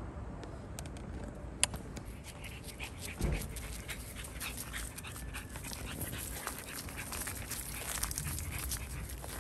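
Pekingese dog panting as it walks, with a rapid scatter of small ticks from about two seconds in. A sharp click comes about a second and a half in, and a low thump a little after three seconds.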